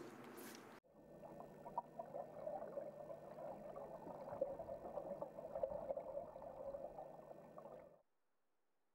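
Swim fins paddling a float tube through the water, giving low, irregular sloshing and gurgling. It starts about a second in.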